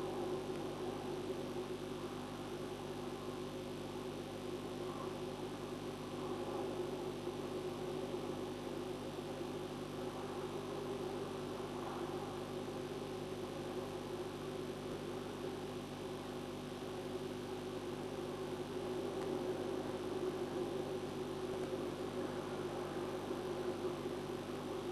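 Steady electrical hum over a low, even rushing noise: the constant background picked up by an outdoor nest-cam microphone.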